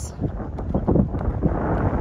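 Strong wind buffeting the microphone in a low, gusting rumble, over the hoofbeats of cantering horses on wet sand.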